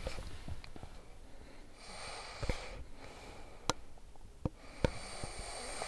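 Sleeping man grinding his teeth (bruxism): a handful of sharp, separate clicks and creaks of tooth against tooth, between two slow noisy breaths.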